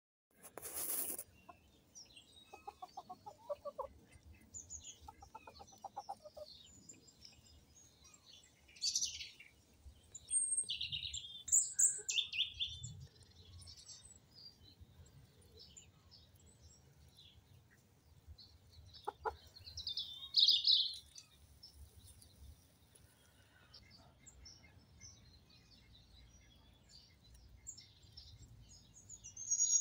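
Pekin bantam chickens clucking quietly in two short rapid trains a few seconds in, while small wild birds chirp in high bursts, loudest about twelve and twenty seconds in. A short burst of noise comes right at the start.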